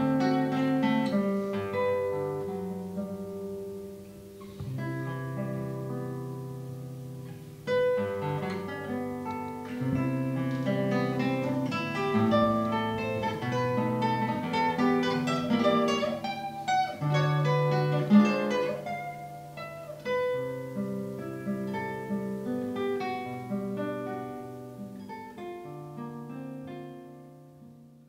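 Solo classical guitar with nylon strings, played fingerstyle: a slow piece of plucked melody notes over ringing bass notes and chords, dying away near the end.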